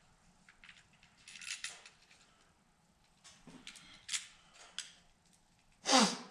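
Small metal and plastic mount parts being handled, giving scattered clicks and rattles. Near the end there is one louder, brief sound that falls in pitch.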